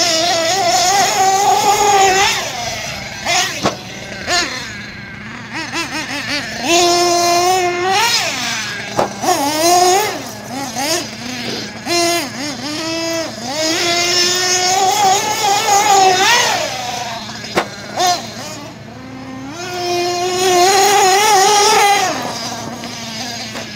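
Nitro engine of an HPI Savage XS RC monster truck revving up and down in repeated high-pitched runs between stretches of idle, settling back to idle near the end, with a few sharp knocks. The engine is running lean because of a damaged fuel-tank O-ring, which the owner says.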